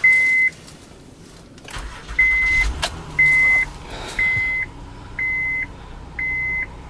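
A Honda's warning chime beeping steadily, about once a second, while the engine is cranked and catches a couple of seconds in, settling into a low, even cold idle.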